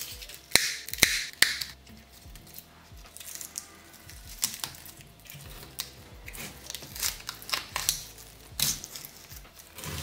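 Cutting pliers clicking and scraping against a microwave oven transformer's steel core as leftover winding wire is pulled out: a series of irregular sharp clicks, loudest in the first second and a half. Faint background music runs under it.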